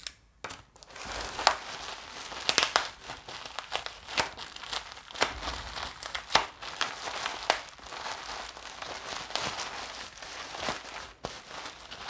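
Plastic bubble wrap crinkling and crackling as hands squeeze and unwrap a bubble-wrapped package, with many sharp crackles, starting about half a second in.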